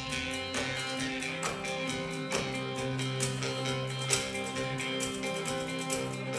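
Instrumental break of a live folk-blues band: picked guitar with held harmonica notes, over a rhythm of washboard strokes and electric bass.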